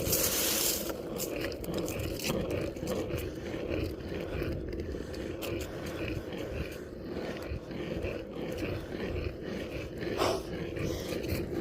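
Skateboard wheels rolling over pavement: a steady, gritty rumble with small clicks and bumps.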